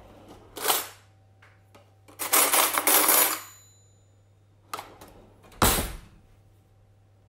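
Small metal objects clinking and jingling in a few separate bursts. The longest bursts come about two seconds in and last over a second, and there is a shorter clatter with a dull thud near the end.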